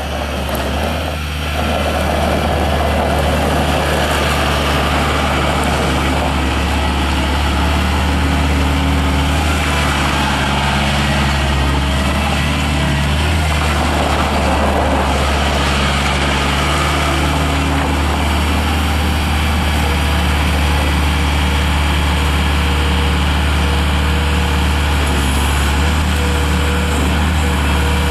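Engine of a 1998 Scat Trak 1300C skid steer loader running steadily, with a brief dip in level just after the start.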